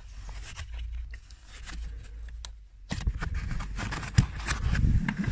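Hands rubbing and scraping along a plastic interior trim cover and the carpet beneath it, with small clicks and one sharp click about four seconds in.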